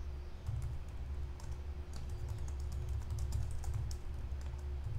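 Typing on a computer keyboard: a quick, irregular run of keystroke clicks over a low steady hum.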